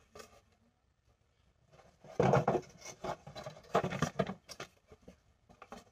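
Cardboard box and glass spray bottle being handled: from about two seconds in, a series of irregular rustles, scrapes and light knocks as the bottle is worked into the box.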